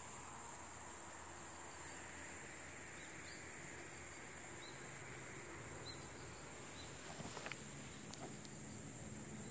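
Faint, steady chirring of crickets, with a few short high chirps in the middle and a couple of small clicks near the end.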